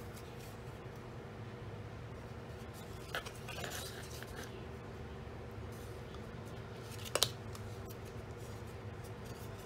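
Brown cardstock being folded and creased along its score lines by hand, with short crinkling handling noises about three seconds in and one sharp crisp snap just after seven seconds, over a steady low hum.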